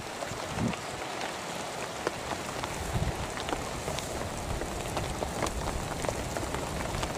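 Heavy rain falling on grass and vegetation: a steady hiss dotted with the ticks of many drops, with a few brief low bumps.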